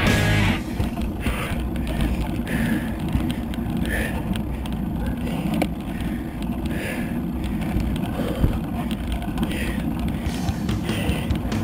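Wind buffeting a bike-mounted camera's microphone and tyre noise on the road while riding a bicycle. Short hissing puffs recur every second or so.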